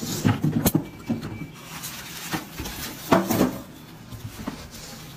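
Cardboard box and polystyrene foam packing scraping and bumping as a boxed welding inverter is pulled out, with irregular knocks and rustling; the loudest come about half a second in and again about three seconds in.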